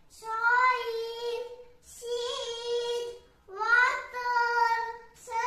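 A young boy's voice in a sing-song chant, three long drawn-out phrases each held on a nearly steady pitch, with short pauses between them.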